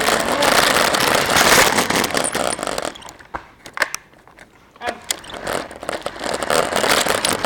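Small RC car motor and wheels running, picked up by the action camera mounted on the car; it stops about three seconds in, leaving a few clicks, and runs again about five seconds in.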